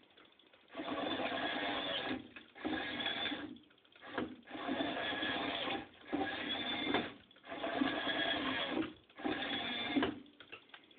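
Small electric motor of a homemade motorised door on a toy model building, whirring in about five runs of one to two seconds with short pauses between, as the door is driven open and shut.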